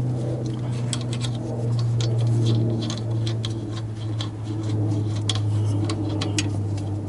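Light, irregular metallic clicks and ticks as the nut is spun off by hand from the lower bolt of a Jeep Wrangler TJ's front sway bar end link, over a steady low hum.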